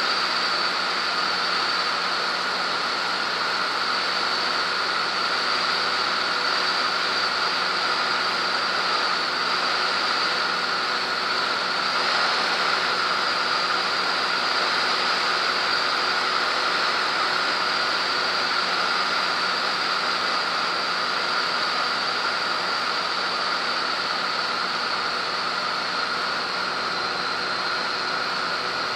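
Cessna T210's turbocharged six-cylinder engine and propeller running steadily in flight, with a constant rush of air noise and a steady high whine over it.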